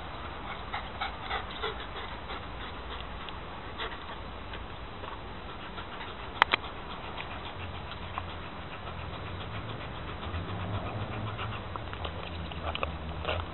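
Giant schnauzer panting, with a sharp double click about six and a half seconds in; a low rumble joins in from about ten seconds on.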